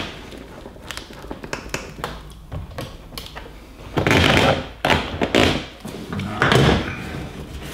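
Handling noise from a PDR reflection board being moved and set up against a car fender: a run of light taps and knocks, then three louder scraping knocks about four, five and six and a half seconds in.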